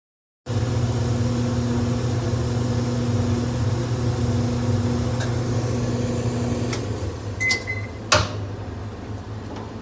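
Clothes dryer running with a steady motor hum that cuts in suddenly and eases off about seven seconds in, followed by a few clicks, a short beep and a sharp knock.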